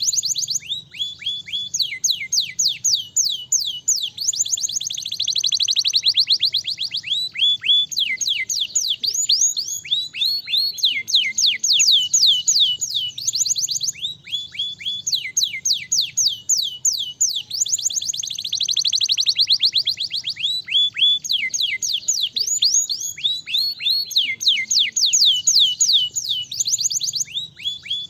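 Domestic canary singing continuously: long trills of fast, repeated, downward-sweeping whistled notes, running phrase into phrase, with two denser, faster rolls, one about a third of the way through and one about two thirds of the way through.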